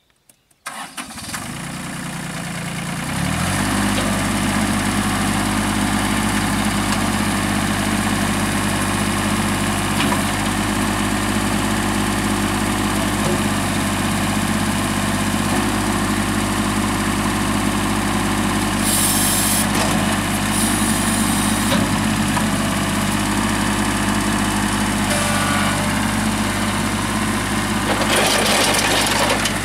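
2001 New Holland TC18 compact tractor's three-cylinder diesel engine running steadily as the tractor drives, its revs and level rising about three seconds in. Short bursts of hiss come twice in the second half.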